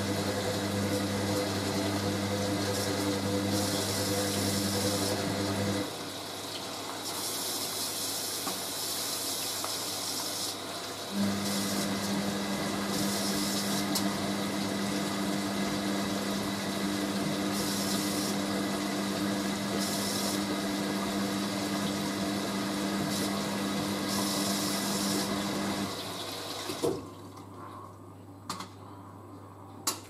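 Hoover A3060 Electronic 1100 washing machine in its dilution stage, water running and sloshing into the drum over a steady mains hum. The hum stops about six seconds in, starts again about five seconds later, and stops near the end, where it goes quieter with a single knock.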